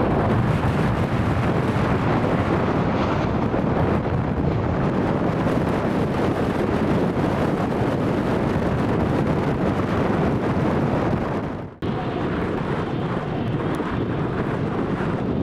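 Wind buffeting the microphone over the low rumble of jet airliners at the airport, a steady loud noise. It breaks off sharply about twelve seconds in and resumes just after.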